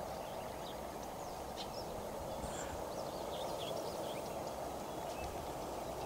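Outdoor morning ambience: many small birds chirping in short scattered calls over a steady background hiss.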